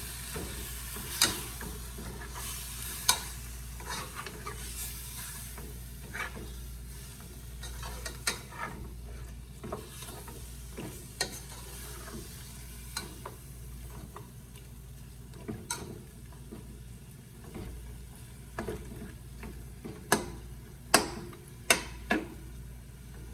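Chicken pieces sizzling in caramelised brown sugar in a pot as a spoon stirs and turns them, with scattered scrapes and sharp knocks of the spoon against the pot. The sizzle is strongest at the start and eases off, and the loudest knocks come in a cluster near the end.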